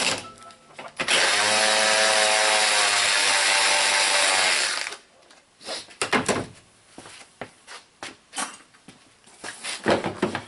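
Cordless power ratchet running steadily for about four seconds, starting about a second in, as it spins out an air box bolt. After it stops come scattered knocks and clicks of the plastic air box housing being handled.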